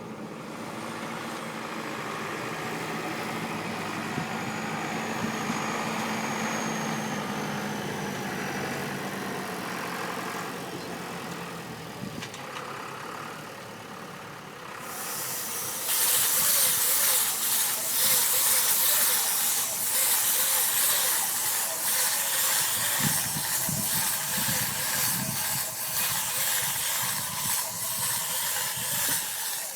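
Tractor-driven hay baling machinery running steadily with its engine's low hum; about halfway through, a loud steady hiss sets in over it and stays.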